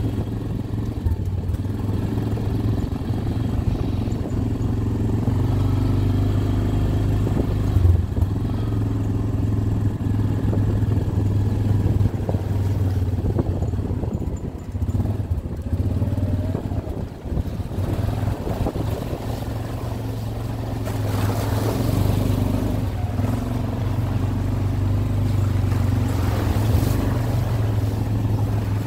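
An ATV's engine running steadily as it rides along a trail, a low drone throughout. It eases off briefly a little past the middle, and a rougher rushing noise joins it for the last third.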